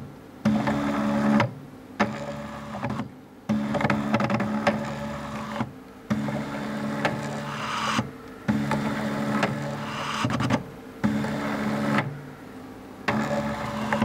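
Stepper motor of a DIY belt-driven ventilator whining as it drives the carriage back and forth against a bag-valve mask, in repeated strokes of one to two seconds each, with short pauses between breaths.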